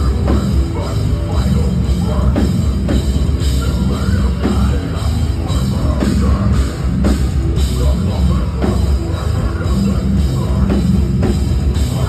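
A heavy metal band playing live and loud: dense distorted guitars and bass over pounding drums.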